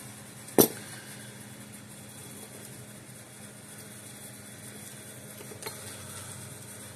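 A circuit board handled on a wooden workbench: one sharp knock about half a second in and a faint tick near the end, over a steady low hum.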